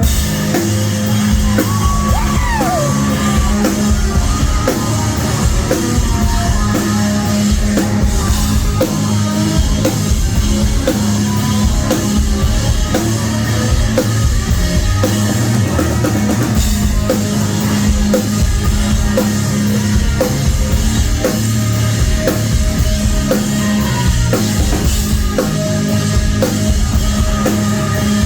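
Live rock band playing loud, with a steady drum beat of about two hits a second under sustained guitar and bass.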